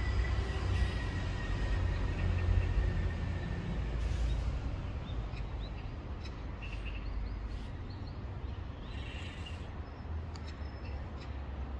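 Outdoor background noise: a low rumble, strongest in the first half, with a few faint, short, high chirps scattered through the later part.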